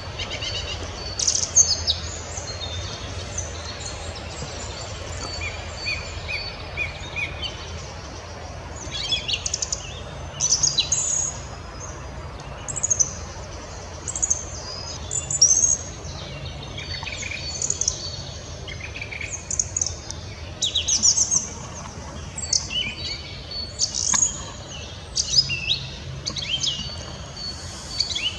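Song thrush singing: short, high, whistled phrases with brief pauses between them, one made of a single note repeated about five times. A steady low rumble lies underneath.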